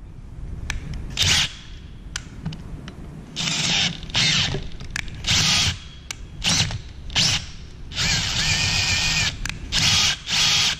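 Electric drill turning a 31/64-inch twist bit into an aluminium pump housing, run in about nine short bursts with pauses between and one longer run near the end. This is drilling out a stripped M12 thread hole so that a Helicoil insert can go in.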